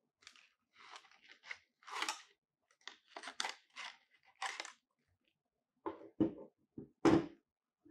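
Cardboard product box being opened by leather-gloved hands: flaps and inner packing slide and scrape in a series of short rustling strokes. About six seconds in come three or four sharp knocks, the last one the loudest.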